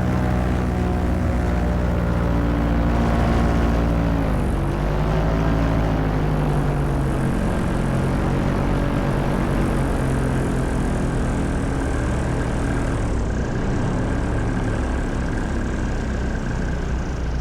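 Paramotor engine and propeller running steadily; the engine note drops about four seconds in and climbs back over the next couple of seconds.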